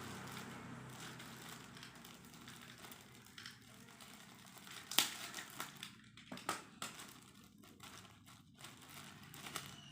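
Hands handling a replacement laptop keyboard and its plastic: light crinkling and scattered sharp clicks, the loudest about five seconds in.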